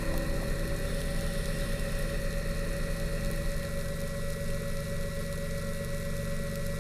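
Steady hum of a Suex diver propulsion vehicle (underwater scooter) motor, heard through the water as the diver travels along.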